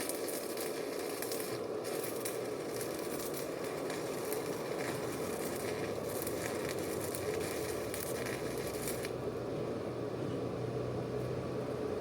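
Electric arc welding: a steady crackling sizzle of the arc that stops about nine seconds in, leaving a low hum.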